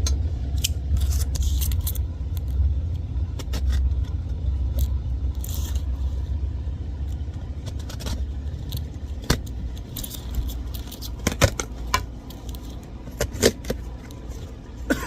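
A shipping box being opened and unpacked by hand: scattered clicks, scrapes and rustles of cardboard and packing, with a few sharper knocks near the end, over a steady low rumble.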